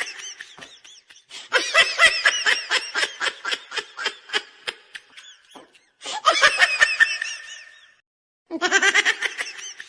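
Laughter in several bursts of rapid, pulsing ha-ha-ha, the longest about four seconds, with a brief silent break near the end.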